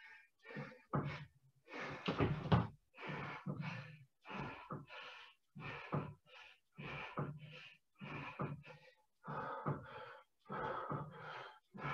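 A person breathing hard from exertion, in quick rhythmic gasps and exhalations about once or twice a second.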